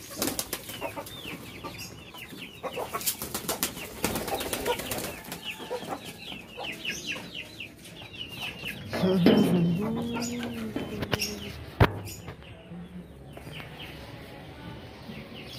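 Chickens clucking and calling, many short, falling calls, with flapping wings among them. Near the middle comes a louder, lower, drawn-out call, and about twelve seconds in a single sharp knock.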